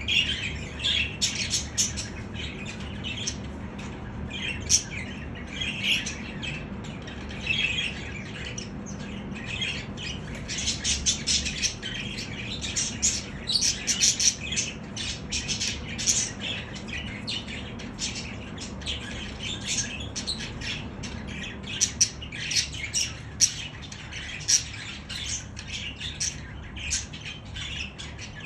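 A group of budgerigars chattering: a continual stream of short chirps, warbles and squawks, with sharper loud calls breaking in every second or two.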